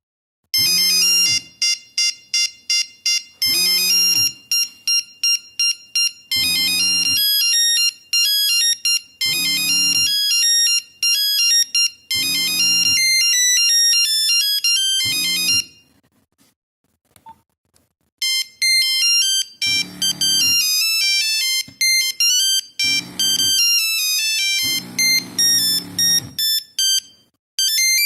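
Nokia 3410 mobile phone playing its monophonic ringtones through its small loudspeaker: quick, simple beeping melodies. One tune plays for about fifteen seconds, then after a two-second pause a second tune plays, and a third starts near the end. A low buzz comes in about every three seconds under the melodies.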